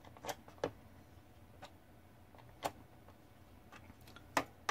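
Small offset (L- or Z-shaped) screwdriver working a low-set Phillips screw out of a gas range's control board a bit at a time: a few faint, sharp metal clicks at irregular intervals as the tool is reset for each short turn.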